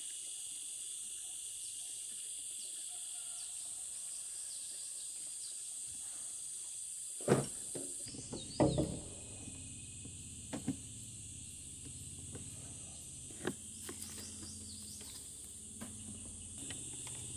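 Insects buzz steadily throughout. About seven seconds in, a Honda-powered Elemax SHX1000 inverter generator is pull-started with two sharp pulls, catching on the second. It then runs with a steady low hum.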